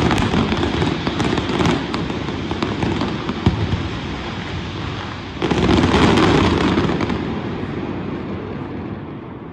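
Fireworks display: a dense barrage of bangs and crackles, with a sudden louder surge of bursts about five seconds in that then dies away.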